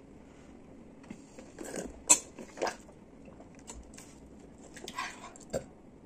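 A plastic bubble tea cup with a straw being shaken and handled: a few short, light knocks and rustles, the sharpest about two seconds in.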